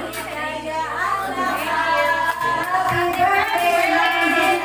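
Singing with music, a high, child-like or female voice carrying the melody.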